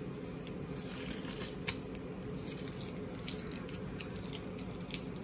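Faint clicks and rustles of hands handling a rigid plastic card holder and a crumpled strip of tape, over a steady low room hum.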